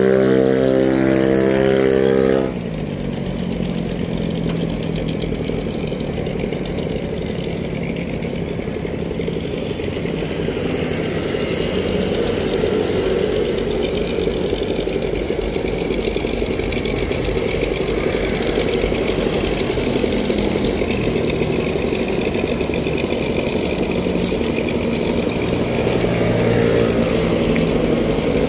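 An engine running steadily, giving a continuous rumble. For about the first two and a half seconds a louder, steady pitched drone sits on top of it, then cuts off suddenly.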